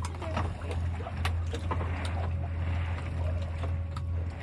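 Steady low rumble aboard a small fishing boat at sea, with scattered light knocks and clicks.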